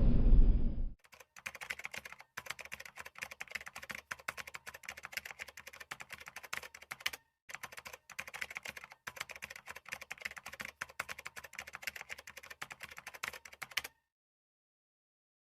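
Rapid keyboard-typing clicks in three long runs with short breaks, then a sudden cut to silence about fourteen seconds in.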